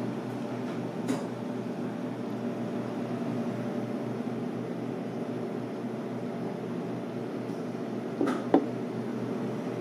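Steady low mechanical room hum, with a light tap about a second in and two sharper knocks near the end.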